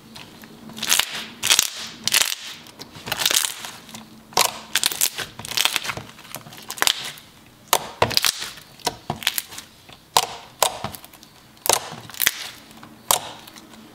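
Clicky slime being poked and squished by hand, giving irregular sharp bubble pops and clicks, sometimes in quick clusters.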